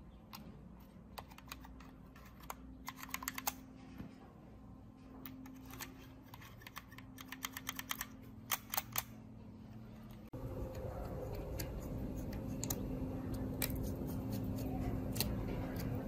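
Quick clusters of light plastic clicks as the thumbstick caps and buttons of a small toy drone remote controller are pressed and worked. About ten seconds in, a steadier hum takes over with a few sparse light ticks as a small screwdriver turns screws in the drone's plastic body.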